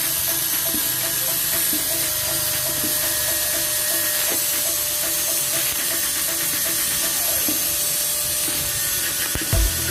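An electric power tool's motor runs at a steady pitch, with a faint regular ticking. There is a low thump near the end.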